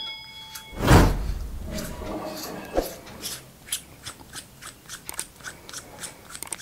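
Battery compartment of a Boya BY-M1 lavalier mic's controller being twisted open by hand: a louder rub about a second in, then a run of faint, small ticks and scrapes as the threaded parts turn.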